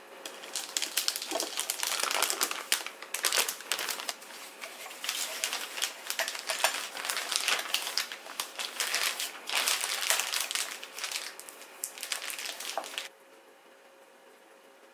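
Disposable plastic piping bag full of butter cookie dough crinkling in irregular bursts as it is handled and pressed by hand to push the dough toward the metal nozzle. The crinkling stops abruptly about two seconds before the end.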